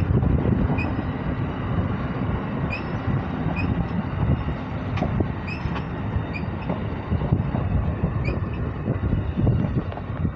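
Amtrak passenger cars rolling past close by: a steady rumble of steel wheels on rail with scattered clicks and short high squeaks.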